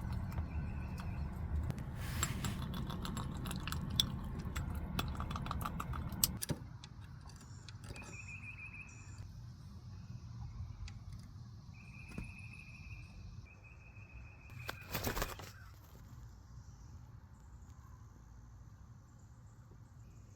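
Low rumble of a car cabin with rattling and clicking for about six seconds, then much quieter, with a few short high chirps and a single sharp clatter.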